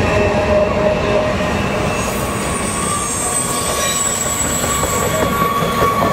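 Freight train's steel hopper cars rolling past on a curve, wheels rumbling over the rails with flange squeal. The squeal is a steady high tone that shifts higher about two seconds in.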